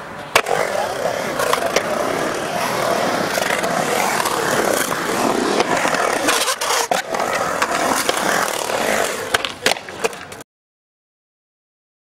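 Skateboard wheels rolling and scraping across a concrete bowl, with sharp clacks of the board and trucks against the concrete. The sound cuts off abruptly to silence about ten seconds in.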